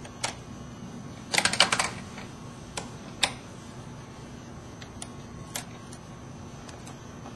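Small hard clicks from hands working the fiber holders and protection sleeve at an open fusion splicer: a quick clattering rattle about a second in, then scattered single clicks.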